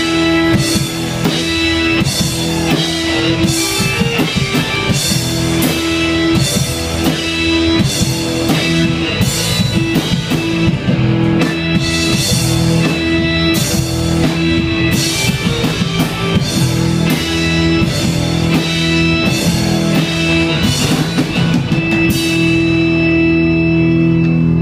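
Live rock band playing an instrumental passage: electric guitars, keyboard and a drum kit with regular cymbal hits. Near the end the drums drop out and a held chord rings on.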